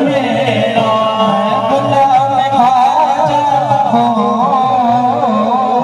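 Devotional music: a voice singing a wavering, ornamented melody over a steady backing, in the style of a naat.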